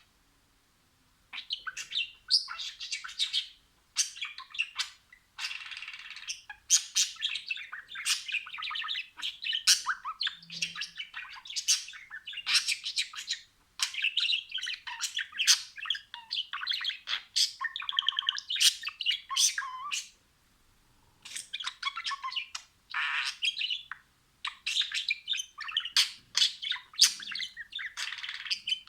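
Budgerigars chirping and warbling in quick, chattering runs of high chirps, broken by short pauses every few seconds.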